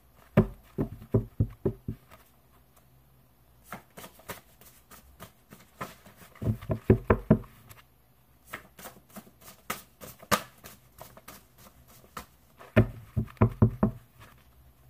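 A deck of tarot cards being shuffled by hand, with light flicking clicks of the cards. Three runs of quick, loud knocks come just after the start, about halfway through and near the end, as the deck is tapped on the table to square it.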